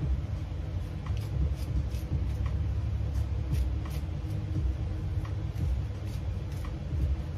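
A deck of tarot cards being shuffled by hand, a run of short soft card ticks two or three times a second, over a steady low rumble.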